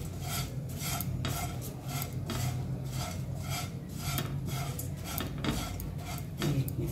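Spatula stirring dry flattened rice (poha) in a nonstick pan while dry-roasting it: a quick rustling scrape with each stroke, about three strokes a second, over a low steady hum.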